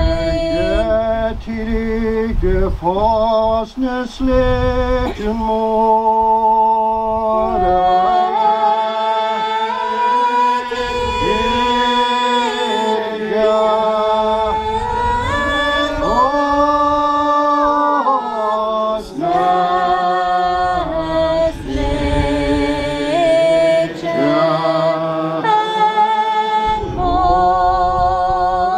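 A congregation of men and women singing a slow hymn or psalm unaccompanied, with long held notes that slide from one pitch to the next.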